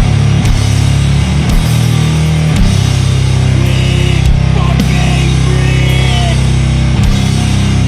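Sludge metal: heavily distorted guitars and bass hold low sustained chords over slow, heavy drum hits, with a few higher held notes wavering above them near the middle.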